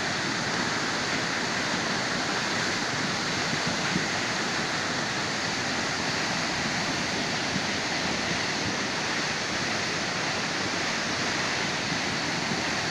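Steady rushing of a river in spate, swollen and overflowing its banks.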